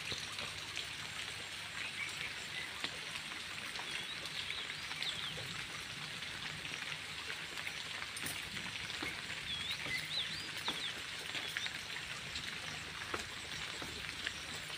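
Steady rain falling on the ground and puddles, an even hiss throughout, with a few brief high chirps a few seconds in and again around ten seconds in.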